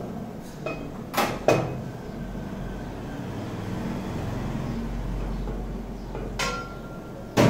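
Metal cookware and utensils knocking on a steel gas range: two sharp clanks about a second in and two more near the end, the last the loudest, over a steady low hum.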